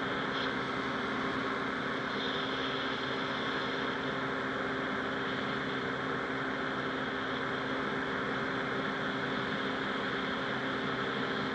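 Rotax 582 two-stroke twin engine and propeller of a Buckeye powered parachute running steadily, a constant drone that holds one pitch.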